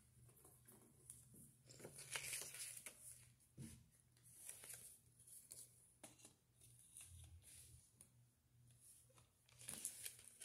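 Faint paper rustling as a CD booklet's pages are leafed through, with light plastic crinkles and ticks near the end as the CD jewel case is handled.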